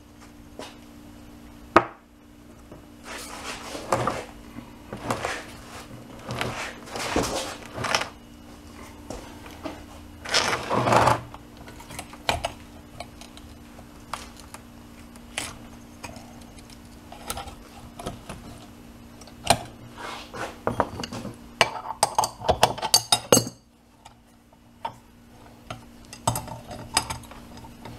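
Steel tie rod clamped in a cast-iron bench vise being levered by hand to straighten it: irregular metallic clinks, knocks and scraping strains against the vise jaws. A steady low hum runs underneath and stops about three-quarters of the way through.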